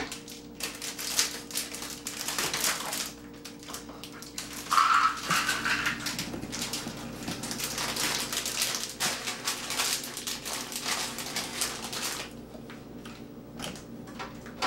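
A plastic bag of raw nuts rustling and crinkling as it is handled and scooped, with nuts rattling against a plastic measuring cup, irregular and clicky. Near the end the nuts are tipped into a blender jar.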